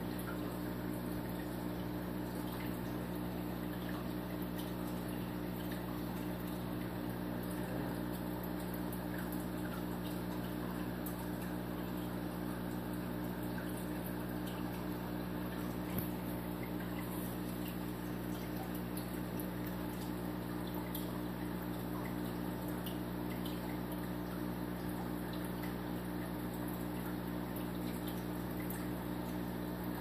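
A steady low mechanical hum, a machine running at constant speed with several even tones, and one small click about halfway through.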